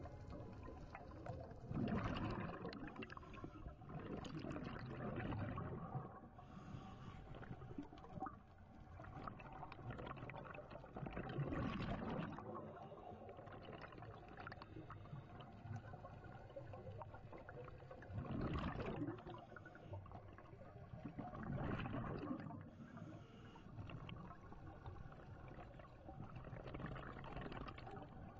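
Underwater scuba regulator breathing: bubbling gurgles of exhaled air come and go every few seconds over a faint steady hum.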